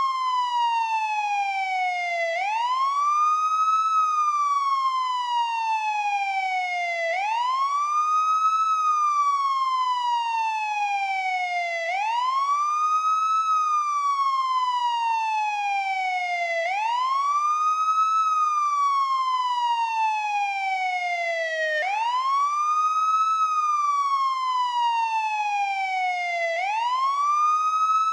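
Police siren on its wail setting: the tone sweeps up quickly, then slides slowly down, repeating about every five seconds, six times.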